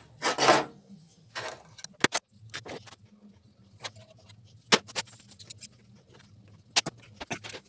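Handling noise as a primer can, plastic mixing cups and metal tools are moved about and set down on a workbench. Two short rustling scrapes come in the first second and a half, followed by scattered sharp clicks and knocks.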